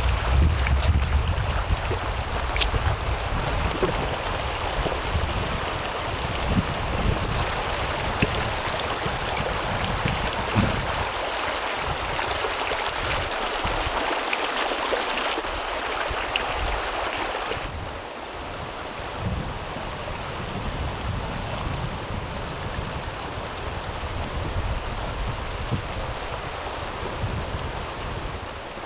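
Shallow, fast mountain stream rushing over a rocky bed: a steady, even hiss of flowing water. It drops slightly in level about two-thirds of the way through.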